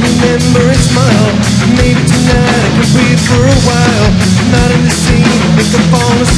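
Pop-punk band playing live: distorted electric guitar, bass and drums, with a male lead vocal sung over them.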